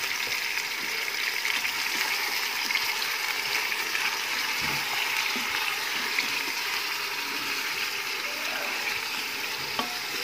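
Raw chicken pieces frying in hot oil in a steel pot: a steady sizzle, with a spatula stirring the pieces and knocking lightly against the pot now and then. This is the first stage of the fry, the chicken not yet coloured.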